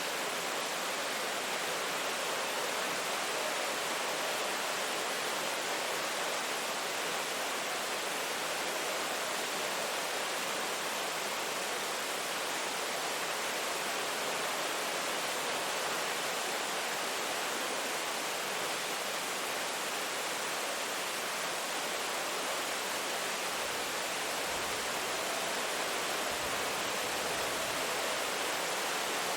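Steady rain falling, an even, unbroken hiss with no distinct drops or thunder.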